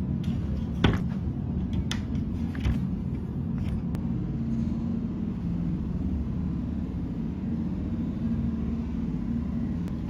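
A steady low mechanical rumble, with a few sharp clicks in the first few seconds, the loudest about a second in.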